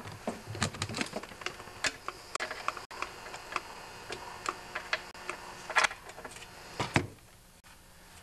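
Ratchet wrench clicking in short, irregular runs as bolts are tightened, with a few sharper metal clicks; the clicking stops about a second before the end.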